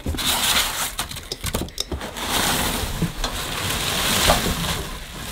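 Bubble wrap and packing foam crinkling and rustling, with scattered sharp clicks, as they are pulled about in a cardboard box.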